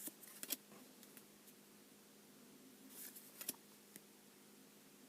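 Faint rustling and clicking of trading cards being handled, in a few short bursts near the start and again about three seconds in, over a low steady hum.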